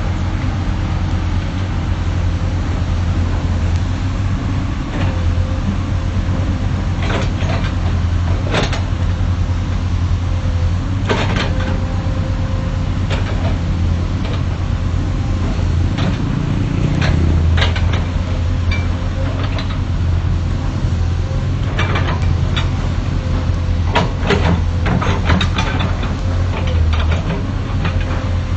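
Excavator's diesel engine running steadily with a deep hum, with sharp metallic knocks and clanks every few seconds as the machine works.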